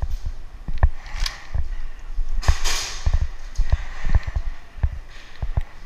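Irregular sharp cracks and knocks of an airsoft pistol skirmish, mixed with low thuds of footfalls; a louder hissing crack about two and a half seconds in.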